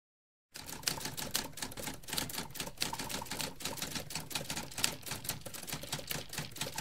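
Typewriter keys clacking in a fast, uneven run of strikes, starting about half a second in and stopping abruptly near the end.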